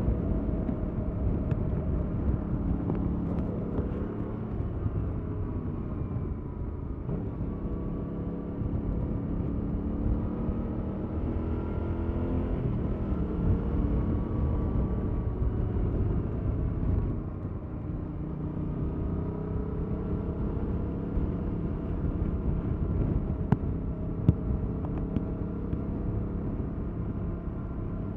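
Stock-exhaust 2021 Yamaha MT-07 parallel-twin engine under way. Revs climb and fall repeatedly, with sharp drops about seven and seventeen seconds in.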